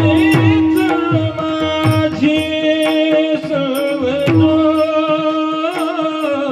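Indian devotional music with tabla strokes under a steady drone, and a long held melody line that wavers and bends in pitch.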